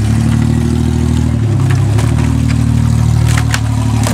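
Ford Bronco II's V6 engine running at low, steady revs, its pitch shifting slightly about one and a half seconds in, with a few sharp cracks about three seconds in as the tires work over a pile of broken boards.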